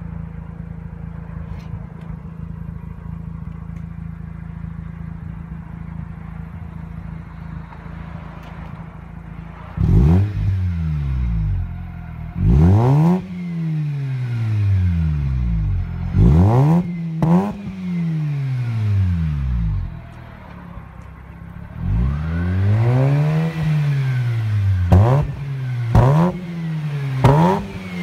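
Mazda RX-8's twin-rotor Wankel rotary engine through a sports catalytic converter and Crooke Tuning stainless steel cat-back exhaust, idling steadily for about ten seconds, then revved. Several quick throttle blips and one longer, slower rev follow, the pitch rising and falling each time.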